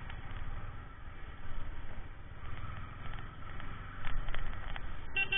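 Ride noise from a KTM 390 Duke moving through traffic: a steady low rumble of the single-cylinder engine and road, with a short vehicle horn toot near the end.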